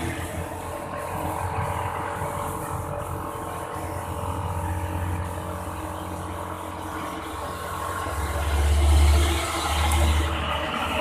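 A vehicle engine running steadily with a low rumble, swelling louder twice near the end.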